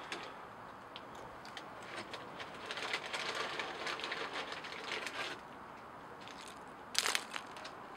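Crackling, crunching sounds of a raccoon eating potato chips, in irregular bursts for a few seconds, with a cluster of sharper, louder crunches near the end.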